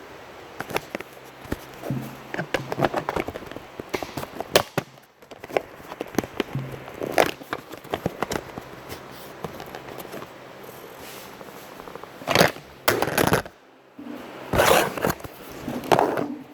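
Improvised noise-making: irregular clicks, crackles and short scraping bursts over a low steady hum, with the loudest bursts near the end.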